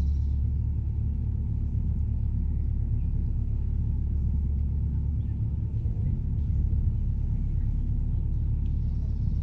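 Narrowboat's diesel engine running steadily at cruising speed: a constant low rumble.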